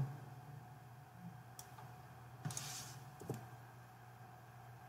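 A few faint computer mouse and keyboard clicks over a low steady hum.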